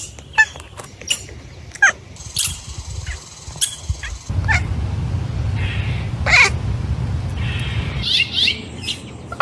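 Short, high animal chirps and squeaks, many in a row, some sliding up or down in pitch. A steady low rumble runs underneath from about four to eight seconds in.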